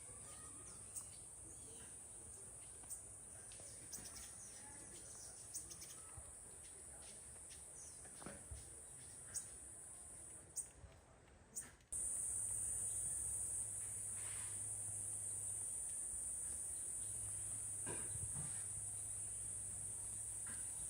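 Insects droning steadily at a high pitch, much louder after a short dip about halfway through. A few scattered sharp taps sound in the first half.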